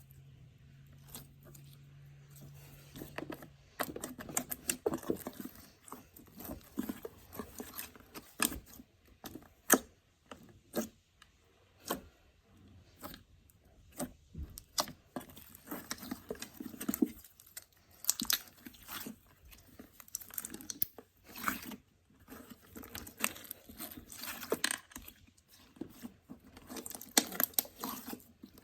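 Slime being squeezed, stretched and poked by hand, making irregular sticky pops and clicks that grow denser after the first few seconds.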